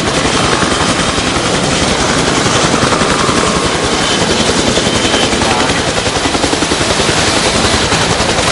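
Helicopter rotor chopping steadily at close range with a fast, even beat.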